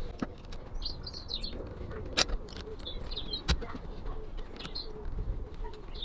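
A hex key turning the screw in a VW Golf Mk5 door handle housing, with a few small clicks and one sharper click a little past halfway, the retaining mechanism clipping free as it stops gripping. Birds chirp in the background.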